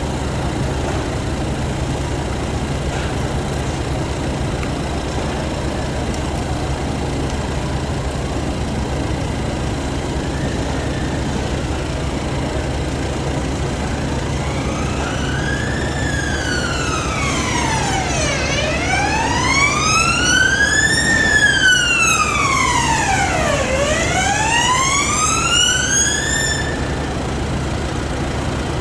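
Emergency-vehicle siren wailing, its pitch sweeping slowly up and down every couple of seconds; it comes in about halfway through, grows louder, then fades out near the end. A steady low engine hum runs underneath.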